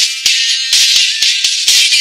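Background music with a busy, hissing percussion rhythm full of sharp clicks.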